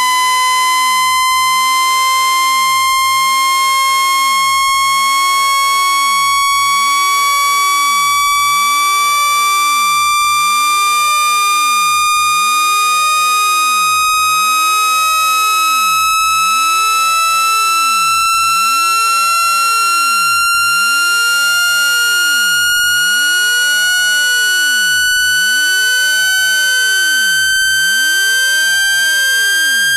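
Synthesized speaker-cleaning tone: a single high, buzzy electronic tone with strong overtones, gliding slowly and evenly upward in pitch at a constant loudness. It is played at full volume to shake trapped water out of a phone speaker.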